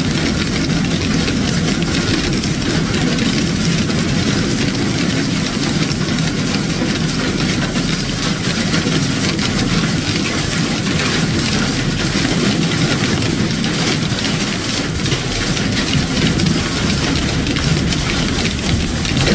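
Hailstorm: a steady, dense din of hailstones and rain coming down and striking, with countless small sharp hits in it.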